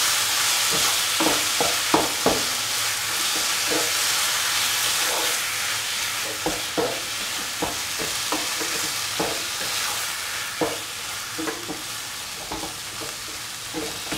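Chicken pieces sizzling as they are sautéed in a pan, stirred with irregular scrapes and knocks of the utensil against the pan. The sizzle slowly gets quieter.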